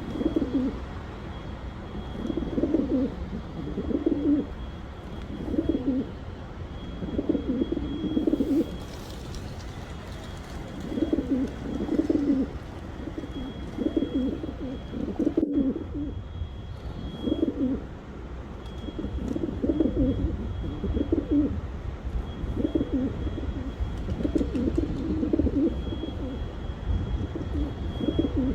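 Pigeons cooing, low throaty coos repeating every second or two in a steady series, with a low hum underneath.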